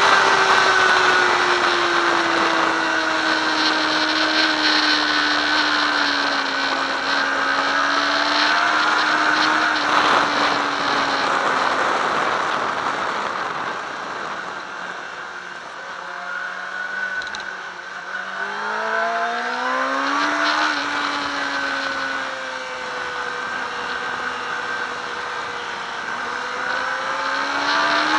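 Sport motorcycle engine heard from an onboard camera over steady wind rush: the engine note sinks slowly for the first dozen seconds, drops quieter about halfway through, then revs climb quickly as the bike accelerates, ease off, and rise again near the end.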